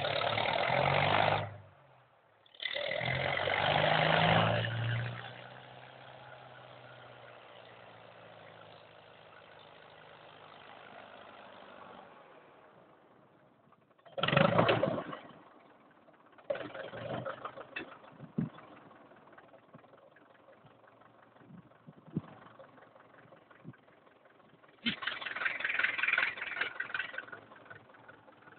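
An engine starting and running, loud at first in two surges, then a quieter steady run that fades away; later comes another short loud burst, some scattered knocks and a final louder spell.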